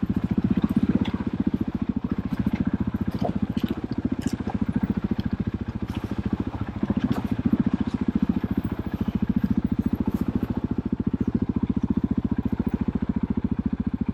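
KTM off-road motorcycle engine idling steadily, with a fast, even beat of firing pulses and a few light clicks over it.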